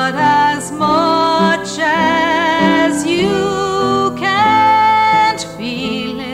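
A woman sings long held notes with vibrato over a gentle instrumental accompaniment.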